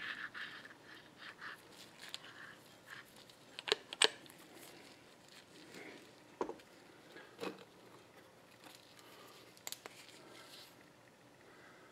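Light handling noise from a power steering gearbox's metal valve housing and input shaft being turned over in gloved hands for a test fit: a few scattered sharp clicks and taps of metal on metal, with soft rustling between.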